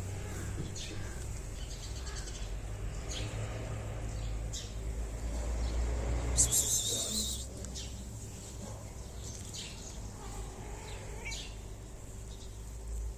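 Small birds chirping: short, high chirps at irregular intervals, the loudest about six and a half seconds in, over a steady low background rumble.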